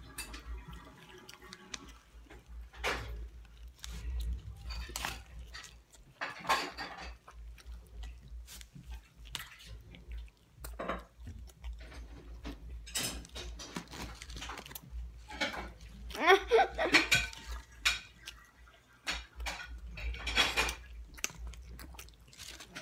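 Boys chewing and smacking with mouths full of food, with scattered small clicks and clinks from handling it, and a muffled mouth-full mumble about two-thirds of the way in.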